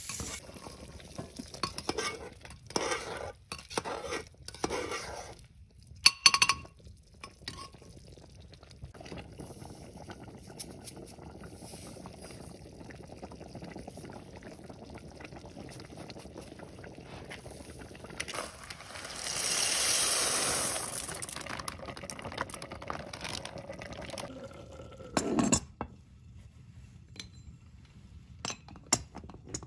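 A metal slotted spoon stirs and scrapes inside a cast-iron pot of simmering food, clinking against the rim, with two sharp clinks about six seconds in. Then a steady low simmer, a brief rushing hiss about two-thirds through, and a single metal clank with a short ring near the end.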